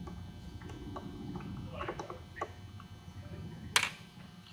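A screwdriver takes the faceplate screws out of a plastic-cased motor operator, making faint scattered clicks and scrapes over a steady low hum. Near the end there is one sharp click as a small part is set down on the table.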